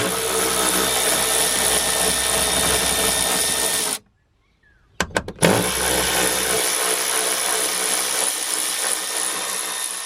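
Milwaukee cordless impact tool with a 10 mm socket running hard to undo the seat belt anchor bolts. It makes two long runs of about four seconds each, with a short break and a couple of clicks between them.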